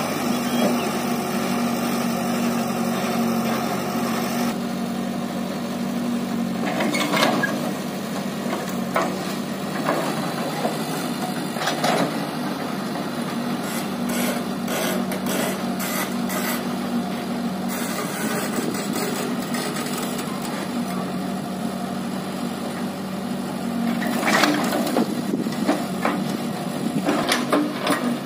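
Diesel engines of a Mahindra 575 DI tractor (four-cylinder, 2730 cc) and a backhoe loader running at a steady speed, with scattered knocks and clatters over the drone.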